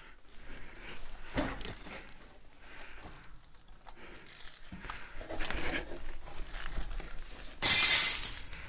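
Scattered footsteps, scuffs and clothing rustle of a person moving carefully through a concrete basement. Near the end a sudden loud hissing burst sets in and fades over about a second.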